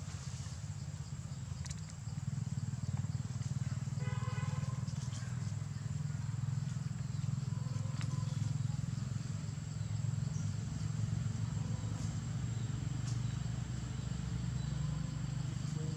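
A steady low rumble, louder from about two seconds in, under a faint constant high whine, with one short high-pitched call about four seconds in.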